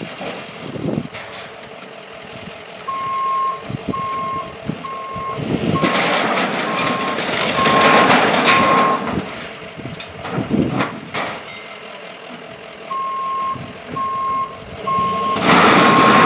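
Heavy equipment's backup alarm beeping steadily a little more than once a second in two spells, over louder rumbling machinery noise that swells up in the middle and again near the end.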